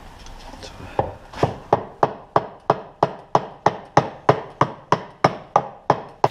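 Hammer tapping a part out of a motorcycle assembly: steady, even blows about three a second, starting about a second in.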